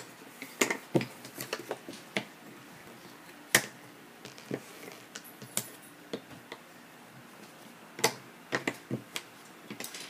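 Jigsaw puzzle pieces tapping and clicking against a tabletop as they are moved and pressed into place, in scattered irregular knocks, the loudest about three and a half seconds in and again about eight seconds in.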